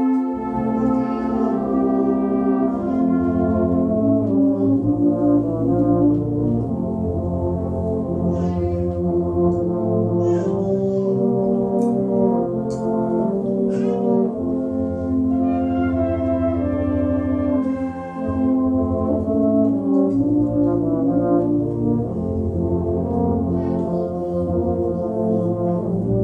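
Salvation Army-style brass band of cornets, horns, euphoniums and basses playing a hymn-tune selection in sustained, full chords. The low brass comes in right at the start.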